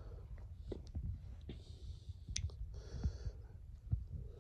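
Faint scattered clicks and soft breaths over a low, steady rumble.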